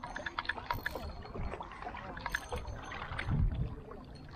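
Small waves lapping and trickling against the rocks at the water's edge, with many small irregular clicks and splashes. A brief low rumble comes about three seconds in.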